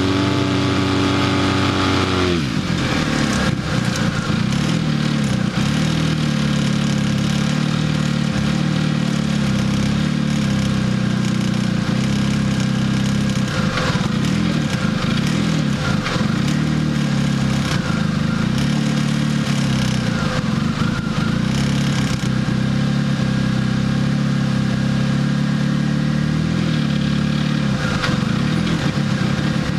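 Off-road vehicle engine held at high revs, dropping back about two seconds in, then running at a steady, lower speed for the rest of the time.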